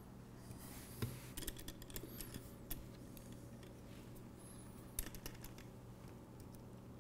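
Faint small metallic clicks and taps as an Allen wrench is fitted to and turned in the screws of shaft collars on a robot drivetrain's wheel shafts. There is a quick run of clicks about a second in and a single sharper click about five seconds in.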